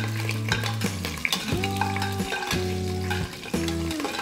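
Green chillies frying with whole spices in hot ghee and oil in a metal pressure cooker, sizzling, with a metal spoon clicking and scraping against the pot as it stirs. Background music with held notes changes every second or so.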